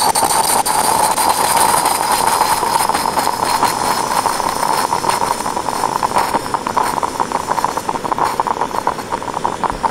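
Moka-style stovetop coffee maker on a canister gas burner, hissing steadily as it boils and pushes steam and coffee up through the grounds. Fast irregular sputtering crackles grow more frequent in the second half.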